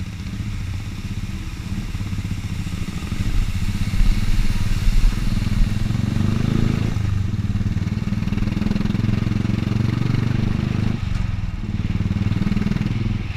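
Royal Enfield 350 single-cylinder motorcycle engine running under way, heard from the bike itself. The engine pulls harder a few seconds in and eases off briefly about halfway and again near the end.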